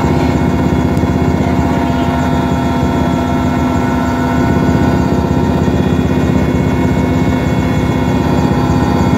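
Helicopter in flight, heard from inside the cabin: engine and rotor running at a steady pitch as one unbroken drone, with a constant low hum.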